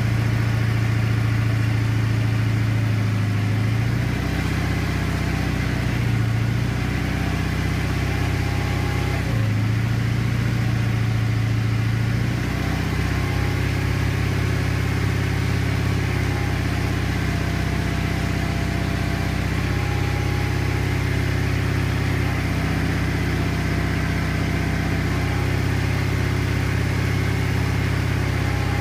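Gravely 16G tractor engine running steadily. Its note shifts briefly several times in the first dozen seconds, then holds even.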